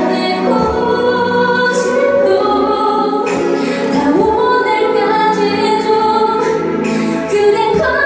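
A woman singing live into a handheld microphone over musical accompaniment, holding long notes.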